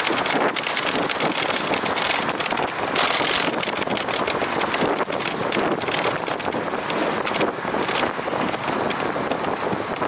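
Wind buffeting the microphone of a camera on a moving bicycle: a loud, even noise that flutters with small gusts.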